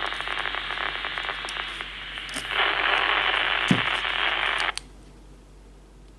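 Baofeng UV-82 handheld radio's speaker hissing with receiver static, squelch open on an empty frequency. The hiss grows louder about halfway through, then cuts off abruptly as the squelch closes.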